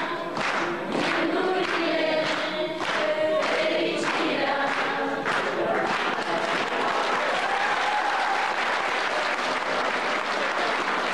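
A group of young voices singing together over rhythmic hand-clapping, about two claps a second. About halfway through the clapping turns into general applause, with the singing fading under it.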